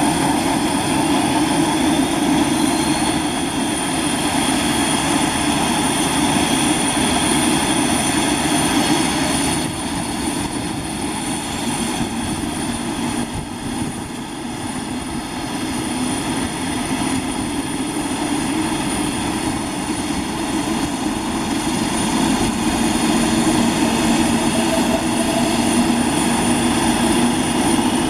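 Convair 580's Allison 501 turboprop engines running on the ground: a steady propeller drone under a high, steady turbine whine. The level dips for a few seconds about a third of the way through, then builds back up.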